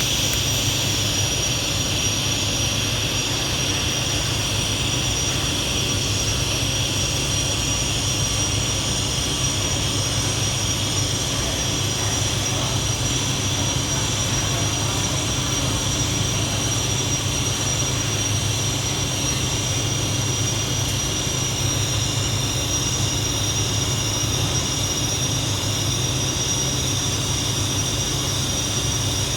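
TIG welding arc running steadily on 4-inch schedule 10 pipe: an even hiss and buzz with a constant high whine over a low hum, unbroken throughout.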